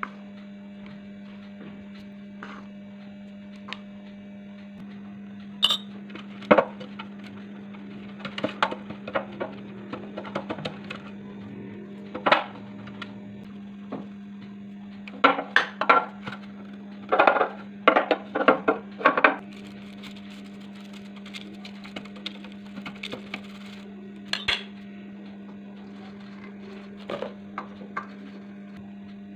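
Kitchen utensil clatter: a spatula scraping and knocking against a stainless steel mixing bowl and a metal loaf tin being handled, in scattered clinks and knocks that are busiest in the middle. A steady low hum runs underneath.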